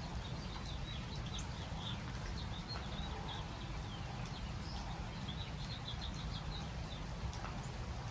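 Steady rain falling on trees, with drops pattering and ticking. Over it, a small bird chirps in quick runs of short, high notes.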